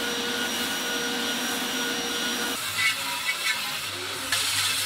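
The electric motor of a workshop machine running steadily with a vacuum-like whoosh and a few steady tones. About two and a half seconds in, its sound changes and the low end drops away.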